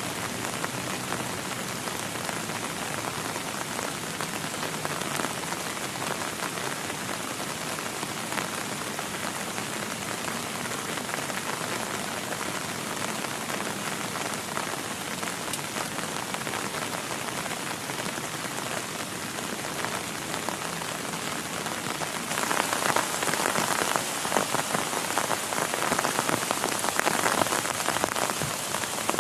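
Heavy rain falling in a steady downpour. It becomes noticeably louder about three quarters of the way through.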